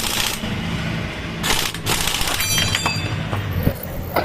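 Cordless impact wrench run in several short hammering bursts, tightening the cylinder head bolts on a Yamaha Mio Soulty 115 scooter engine.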